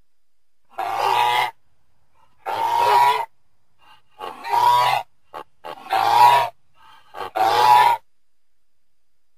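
Goose honking: five calls, each under a second long, spaced about a second and a half apart, with a few short clipped notes between the middle ones.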